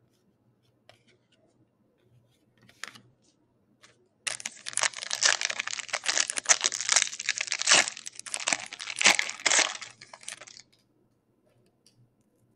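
A foil trading-card pack wrapper being torn open and crinkled by hand. It starts about four seconds in, after a few faint clicks of card handling, and runs as a continuous crackle for about six seconds.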